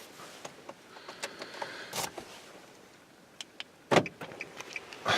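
Faint rustling and scattered small clicks from movement inside a parked car, with a sharper knock about two seconds in and another near four seconds.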